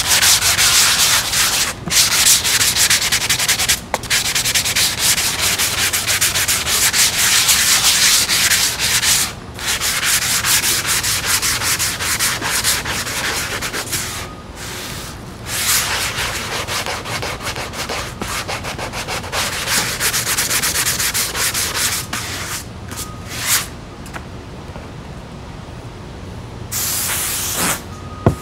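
Hand sanding of spackle on a foam wing with a flexible foam-backed sanding pad: steady rasping back-and-forth strokes with a few short pauses, growing lighter after about 22 seconds. A short hiss, about a second long, comes near the end.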